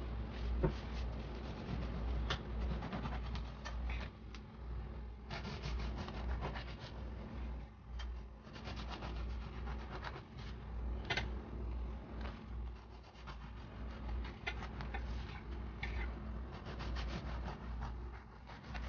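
Bread knife sawing back and forth through a crusty sourdough loaf, a rasping scrape with each stroke and a few sharp crackles from the crust.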